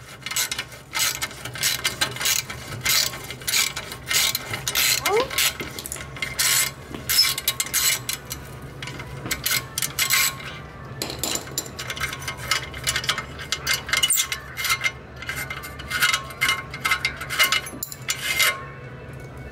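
Hand socket ratchet clicking in quick runs while backing off a 13 mm exhaust clamp bolt, with small metal clinks of the tool.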